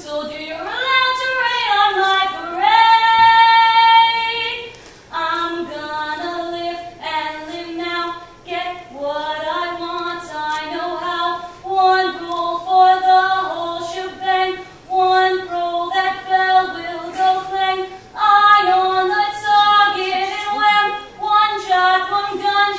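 A young woman singing solo and unaccompanied, one melodic line moving note to note, with a long held note a few seconds in.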